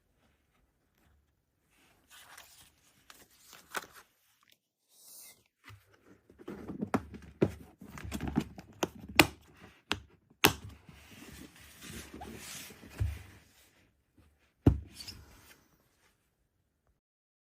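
Hands handling packaging and equipment: irregular rustling and scraping with scattered sharp clicks and knocks, starting about two seconds in.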